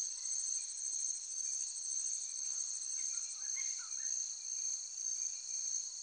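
Chorus of insects, crickets or similar, trilling continuously at a high pitch with a fast, even pulse. A few faint chirps come in about halfway through.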